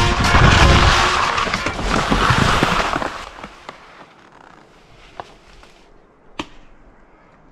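Skis sliding and scraping over snow with wind rushing on the follow camera's microphone, loud for about three seconds, then dying down to a low hiss. Two sharp clicks come late on, the second the louder.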